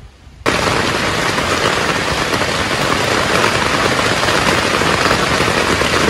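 Heavy rain drumming steadily on a tent's fabric, a dense, loud patter of countless drops, starting abruptly about half a second in.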